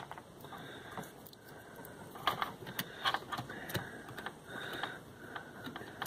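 Thin low-voltage thermostat wires being handled and taken off their connections: small clicks and rustles, with a few sharper ticks around the middle.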